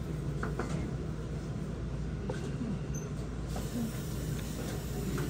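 Steady low hum of a restaurant room, with a few faint clicks of tableware.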